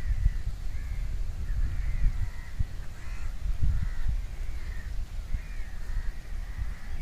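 Crows cawing over and over, about two harsh calls a second, over a gusty low rumble.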